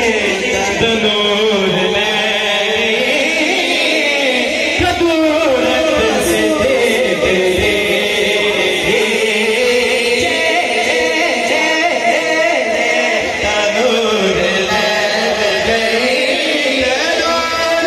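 A man singing a Punjabi naat in a chant-like melody, amplified through a microphone and PA loudspeaker.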